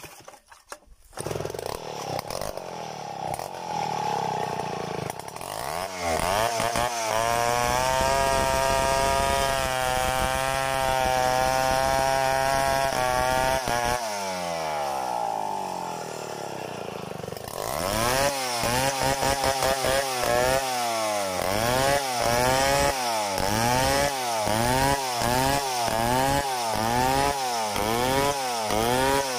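Stihl 070 two-stroke chainsaw ripping a mahogany log lengthwise into boards, freehand. It comes in about a second in and holds a steady high pitch under load for several seconds. In the second half its pitch rises and falls about once a second as it works through the cut.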